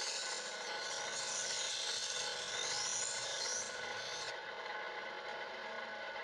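Angle grinder running while grinding the bevel into a steel kitchen-knife blade: a hissing grind of the disc against the steel for about four seconds, which stops suddenly while the motor keeps running.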